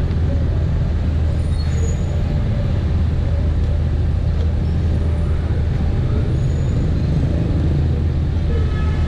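Dense city street traffic running steadily: a continuous hum of many small engines, mostly motorbikes, with the rumble of passing vehicles.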